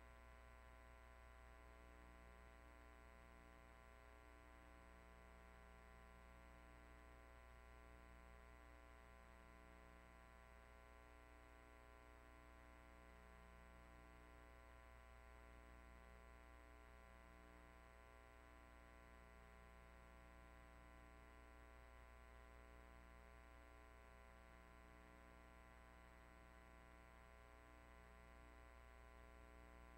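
Near silence: a faint, steady electrical hum and buzz.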